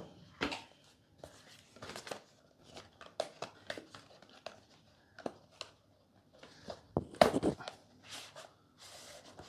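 Packaging being handled during an unboxing: a cardboard box and its paper contents rustling, tapping and scraping in short, scattered bursts, with a louder burst of handling about seven seconds in.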